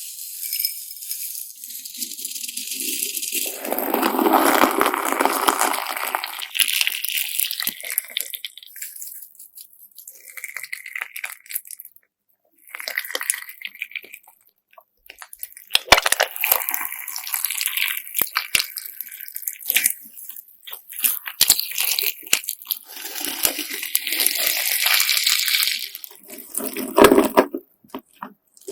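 Hands pressing and kneading a crunchy glass-sand slime, giving a gritty grinding crunch in irregular bursts with short pauses.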